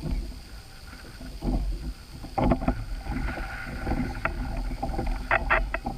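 Wind rumbling on the microphone, with short knocks and rattles that come in two clusters, about two and a half seconds in and again about five seconds in.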